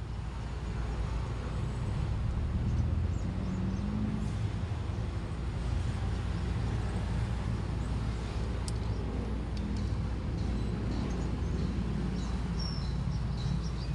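Steady low rumble of vehicle traffic, swelling a couple of seconds in, with a few faint clicks near the end.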